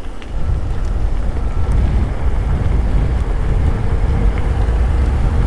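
Wind buffeting the microphone while a mountain bike is ridden along, a steady low rumble that gets louder about half a second in.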